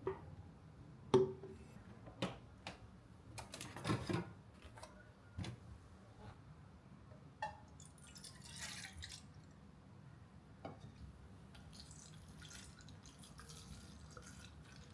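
Kitchen prep sounds: a scattered series of light taps and clinks, then a short hiss of water a little past the middle and fainter water sounds near the end.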